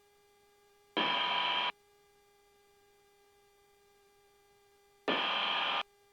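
A faint steady electrical whine with overtones in the aircraft's headset audio, cut by two short bursts of static-like hiss, each under a second and starting and stopping abruptly, about four seconds apart.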